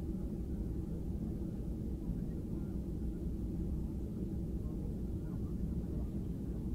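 Steady low rumble heard inside the cabin of a Boeing 737-800 taxiing, its CFM56 engines at low taxi thrust.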